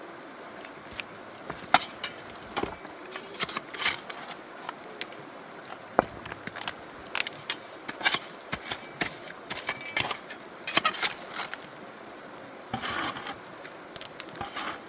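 Gravel and stones clattering and scraping in a plastic basket classifier being worked over a bucket of water to wash fine material through for gold panning, in irregular bursts of sharp clicks.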